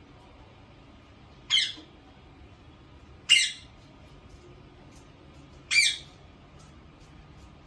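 Indian ringneck parakeet giving three short, loud squawks, two to three seconds apart.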